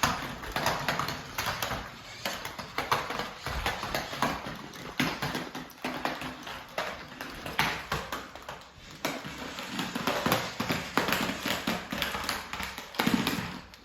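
A toy remote-control car driving and tumbling about, giving a fast, irregular clatter of plastic knocks and taps.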